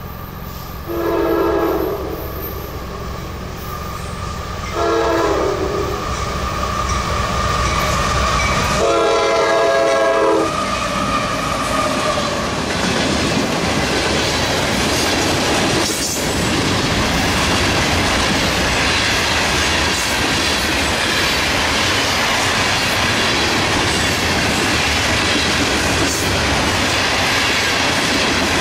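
CSX freight train sounding its horn in three blasts as it approaches, the third the longest. The train then passes close by, its wheels rumbling and clattering on the rails as a string of covered hopper cars rolls past.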